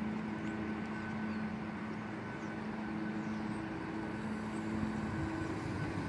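Church bells ringing on, their held tones swelling and fading with no sharp new strikes, over a steady low rumble.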